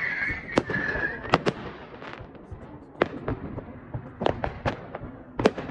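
Fireworks going off: a string of sharp bangs and crackles at irregular intervals. A high wavering whistle drops slightly in pitch and stops about a second in.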